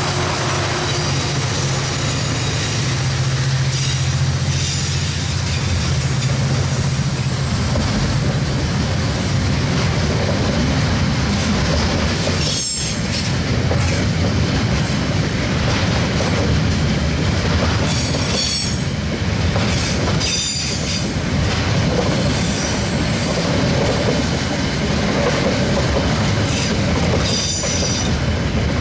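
KiwiRail DF class diesel-electric locomotives working hard up a steep grade with a maximum-weight train, their engine drone fading about seven seconds in. Loaded container wagons then roll past with steady wheel-on-rail noise and brief high wheel squeals a few times.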